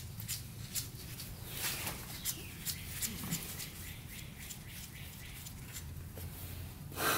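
Faint scattered clicks and scrapes of gloved fingers unscrewing the oil drain plug on a 1980 Kawasaki KDX175, over a plastic drain pan, with a low steady hum underneath. A brief louder burst of noise comes near the end.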